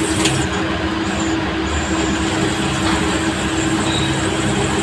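CNC lathe running its automatic machining cycle, the spindle turning the chuck and workpiece at steady speed while a turret tool cuts. A constant hum with an even hiss over it.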